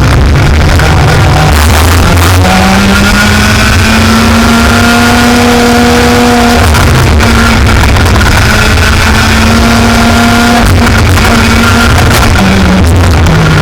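Racing engine running hard, very loud, its note climbing and holding and then dropping several times as it revs up and backs off. The engine has been running badly in this race, with engine problems.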